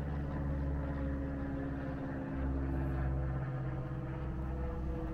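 An engine running steadily, giving an even, low hum.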